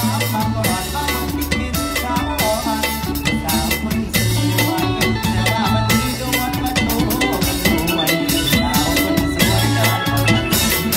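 Mor lam band music: a drum kit keeps a steady beat under a bass line and bright sustained melodic instruments.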